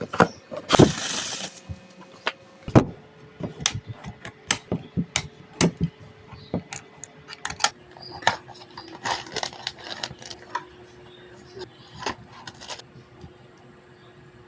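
Unboxing handling of a mechanical keyboard and its packaging: irregular taps, clicks and knocks, with a short rustle about a second in and a denser flurry of clicks around the middle.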